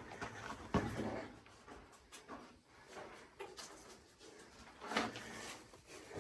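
A person's heavy breathing, a noisy breath every second or two, out of breath from a hike. There is a sharp knock or scuff about a second in.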